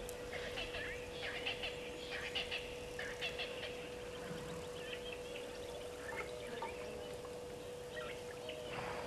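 Wild birds chirping and calling in quick, busy bursts that thin out after the first few seconds, over a steady low hum.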